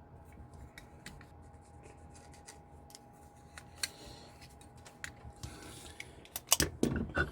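Light clicks and scrapes of small copper bracelet pieces being handled and bent by hand, with a few louder metal knocks near the end.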